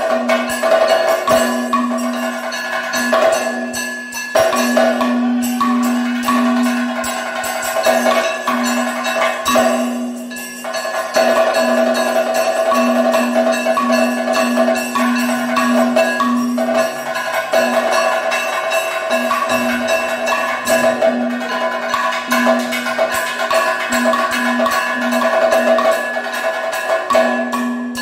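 Kathakali percussion accompaniment: maddalam and chenda drums played in a fast, dense rhythm, with ringing metal gong and cymbal strokes keeping time over a held tone.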